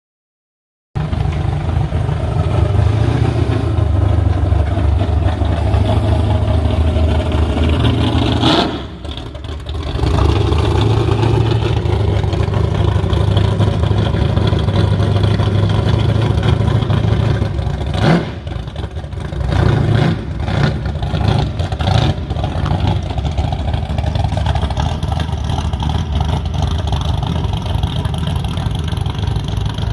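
Classic muscle car engines rumbling and revving as cars roll in, with a few abrupt breaks where different cars' sounds are cut together.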